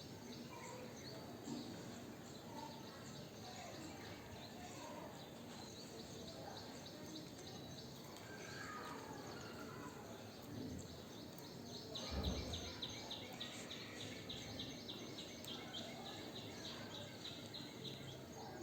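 Cockatiel moving about its cage with a few soft chirps, then a thump and a rapid series of short high ticks, several a second, lasting about six seconds.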